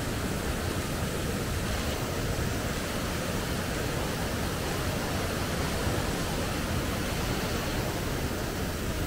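Waterfall: water pouring over tiered rock ledges into a pool, a steady, even rush of water.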